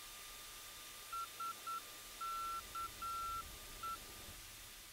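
Beeps of a single high tone in a Morse-code pattern, three short, then long, short, long, short, over a faint steady hum in the F/A-18 Super Hornet's cockpit audio: typical of a radio navigation beacon's Morse identifier coming through the intercom.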